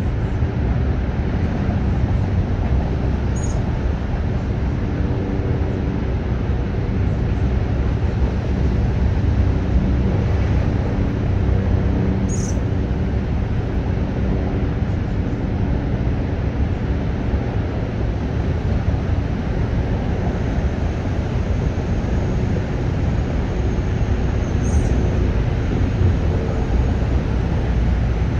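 Steady low outdoor rumble with faint steady hums running through it, with three brief high chirps about three, twelve and twenty-five seconds in.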